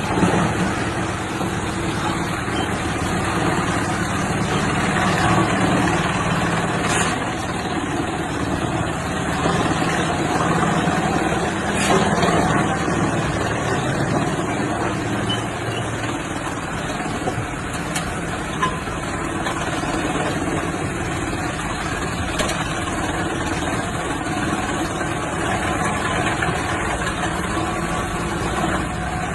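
Wood chipper machine running steadily with a continuous low mechanical hum, with a couple of faint knocks.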